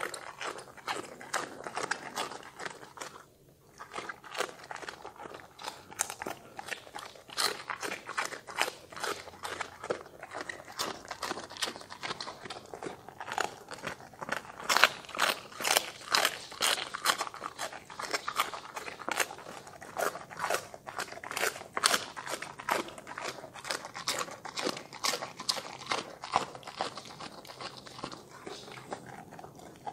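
A Doberman crunching and chewing raw cabbage leaves, a quick run of sharp crunches with a short pause about three seconds in.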